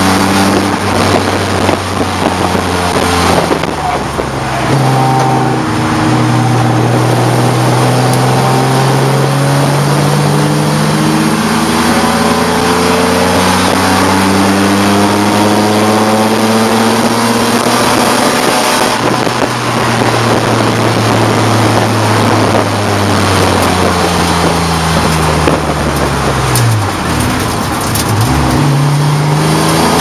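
Race car engine heard from inside the stripped cockpit under sustained throttle, its note climbing slowly for a long stretch. About 26 seconds in the revs fall sharply, as when lifting and braking for a corner, then climb again near the end.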